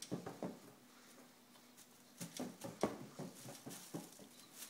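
A baby's short excited laughs and squeals, with light taps and rustles as a rubber balloon is batted about. The taps come in a quick run about two seconds in and again near the end.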